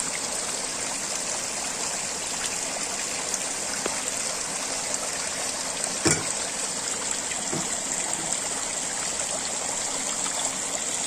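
Steady splashing of thin water streams pouring from overhead pipes into a fish tank, with one sharp knock about six seconds in.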